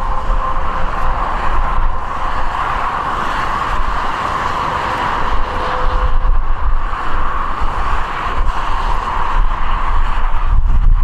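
Gusting storm wind buffeting the microphone, over the steady drone and whine of a twin-turboprop airliner on its landing approach.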